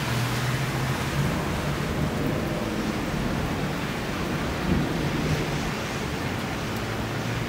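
Rain falling steadily, with a low rumble of thunder beneath it.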